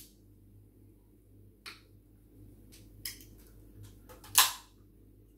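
Fingernail clicks and scratches on the ring pull of a freezer-chilled Coca-Cola can, then, a little over four seconds in, the tab cracks the can open with one short, sharp burst of hiss.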